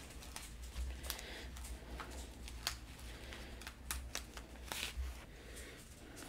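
Paper sticker sheet rustling, with small crackles and clicks as a paper heart sticker is peeled off and pressed onto a Bible page, over a low steady hum.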